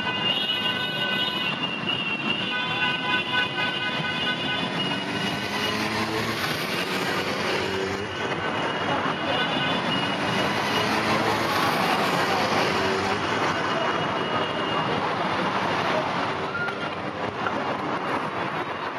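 A stream of motorcycles riding past, their engines running and revving with slowly rising and falling pitch. A held horn sounds a steady note over them for the first few seconds, breaking off briefly about a second and a half in.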